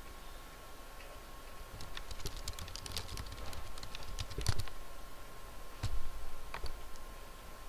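Typing on a computer keyboard: a quick run of keystrokes, then two or three louder single clicks near the end.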